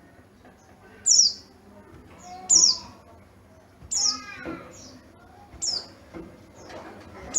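Yellow-breasted pleci (white-eye) singing: loud, short, high notes falling in pitch, repeated about every second and a half, with softer notes in between.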